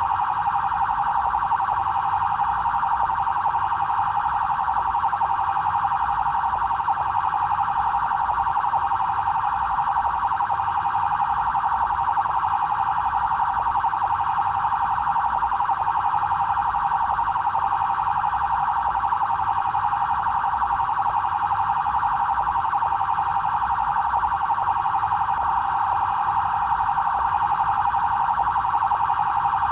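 BAEP police siren sounding continuously, a loud, steady tone held without breaks or rising and falling sweeps.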